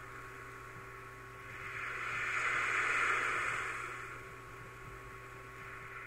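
Seaside ambience: a rushing noise of wind and surf that swells about two seconds in and eases off again, over a faint steady hum.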